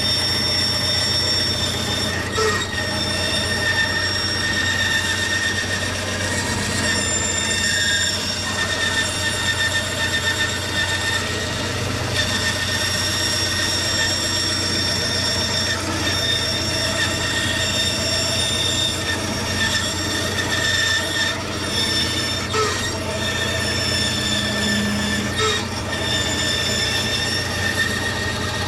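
Woodworking power tool running steadily with a high-pitched whine over a low hum, shaping the horns of a solid guitar body.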